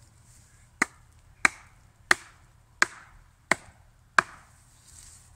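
A wooden mallet striking the top of a wooden post six times in an even rhythm, about one blow every 0.7 seconds, driving the post into the ground.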